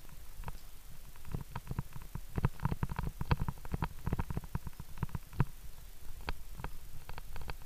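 Irregular clicking and knocking over a low rumble, busiest through the middle: handling noise from climbing gear and body movement against a body-worn action camera.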